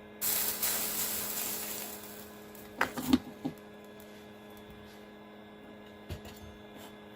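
A short blast of spray hissing onto the freshly soldered driver IC on the circuit board to cool it, starting suddenly and fading over about two seconds. A few sharp clicks of tools or the can being handled follow, then a single knock, over a steady electrical hum.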